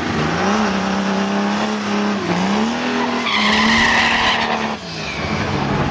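A Mercedes W124's 3-litre OM603 turbodiesel on nitrous is held at high revs, then launches. Its note dips briefly twice and climbs again. A tyre squeal joins in about three seconds in, and the engine note falls away suddenly near the end.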